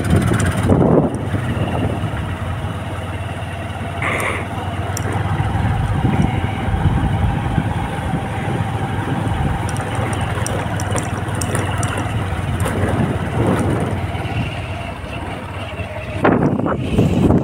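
Motor vehicle engine running steadily with road noise, with a short higher tone about four seconds in.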